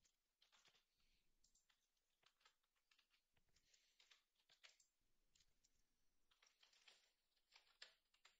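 Faint computer keyboard keystrokes and mouse clicks, scattered irregularly in small clusters, over near silence.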